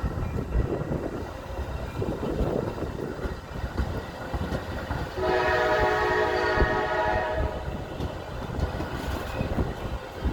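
Metra EMD F59PH diesel locomotive sounding its multi-note air horn in one blast of about two seconds, a little past the middle, over the low rumble of the train.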